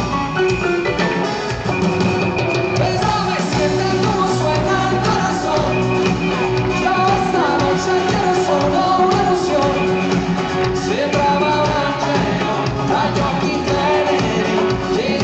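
Pop-rock band music with a singing voice over it, playing steadily.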